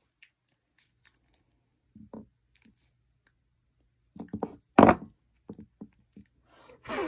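Sticky homemade slime being stretched and pulled apart by hand, giving small wet clicks and pops, then a cluster of louder crackling pops about four seconds in.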